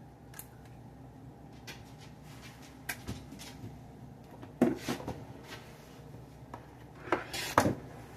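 Plastic K-cup capsule holder and reusable ground-coffee filter being handled: scattered light clicks and knocks, with two louder clattering clusters, one about halfway and one near the end.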